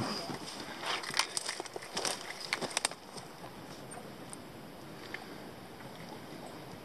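Crunching and snapping of twigs and dry forest litter underfoot, a scatter of sharp crackles over about three seconds, then only faint outdoor ambience.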